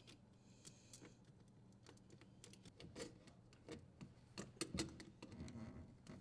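Faint, irregular small clicks and taps of metal parts and wires being handled at a dishwasher's electrical terminal box as the strain relief nut is tightened. A slightly louder knock comes near the end.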